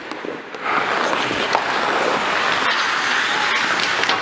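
Ice hockey rink sounds close to the goalie: skate blades scraping on the ice and equipment rustle, with a few sharp knocks. It is quieter for a moment at the start, then steady.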